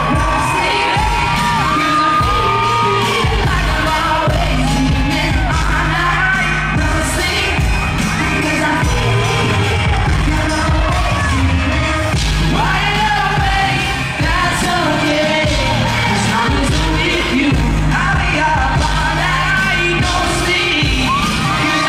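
Live pop song with a group singing over a band with drums, bass and guitar, at concert volume. It is recorded from the arena audience, so the sound is loud and reverberant.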